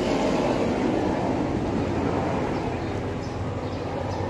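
Steady engine rumble with a low hum, slowly fading toward the end.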